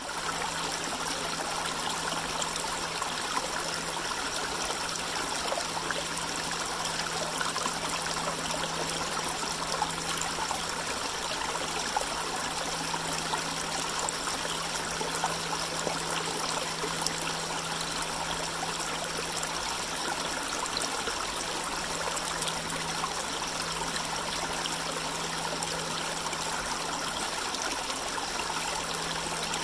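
Small, shallow creek trickling and burbling over rocks, a steady running-water sound that does not change.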